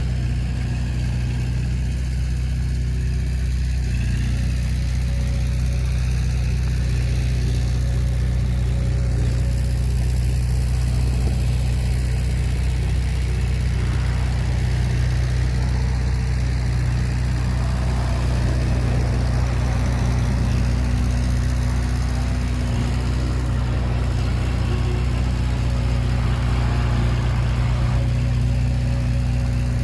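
Heavy earthmoving machine's diesel engine running steadily at an even speed, with a low constant note that neither rises nor falls.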